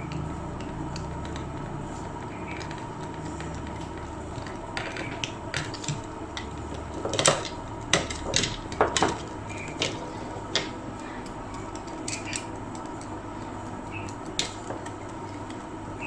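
Small clicks and knocks of a plastic wall switch being handled and its terminal screws worked with a screwdriver, with a cluster of sharper clicks about seven to nine seconds in, over a steady background hum.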